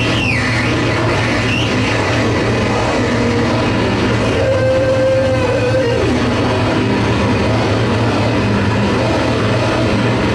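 Live harsh noise music from electronic gear: a dense, loud, unbroken wall of noise over a steady low hum. A squealing pitch sweeps up and down at the start, and a held mid tone comes in about four and a half seconds in and slides down around six seconds.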